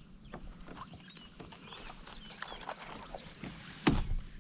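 Small clicks and knocks of gear being handled on a plastic fishing kayak while a fish is fought on the rod, with a few faint high chirps in the middle. About four seconds in comes a louder knock as the paddle is shifted down onto the hull.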